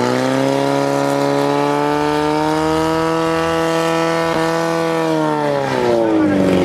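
Portable fire pump engine running hard at high revs, feeding the hose lines while the nozzles spray water at the targets. Its steady pitch dips noticeably about six seconds in, then starts to climb again.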